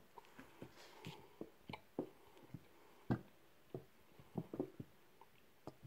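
Faint, scattered knocks and clicks of glass jars being handled on a table while they are filled with honey, the loudest knock about three seconds in.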